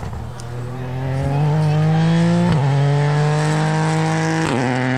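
Rally car engine accelerating hard, its pitch climbing, growing louder from about a second in, with two quick upshifts about two seconds apart where the note drops and climbs again.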